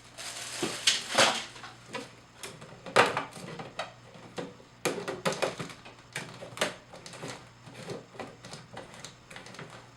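Plastic blender jar parts and a disposable cup being handled and fitted together: irregular clicks, knocks and short scrapes, the loudest about a second in and three seconds in.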